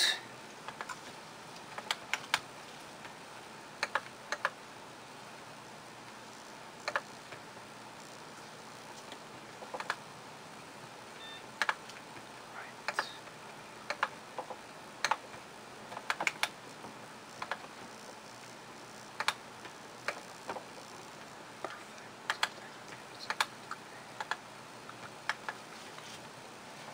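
Faint, sharp clicks at irregular intervals, about one every second or two and sometimes two or three close together, over a steady low hiss.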